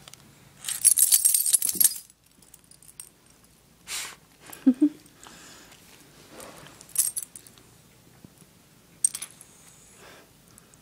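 Small metal tags on a dog's collar jingling and clinking in bursts as the dog paws and rubs at its face, the longest burst about a second in and shorter ones near four, seven and nine seconds. A brief squeaky vocal sound from the dog's yawn comes about halfway through.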